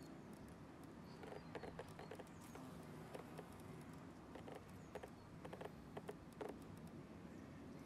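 Faint, irregular ticking and rustling from a violet carpenter bee clambering and pushing into snapdragon flowers, over a low, steady background hum.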